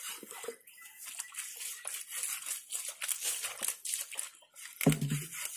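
Knife cutting and scraping raw pangasius on a wooden chopping block, a quick run of short crisp scrapes and ticks. A man's voice cuts in briefly near the end.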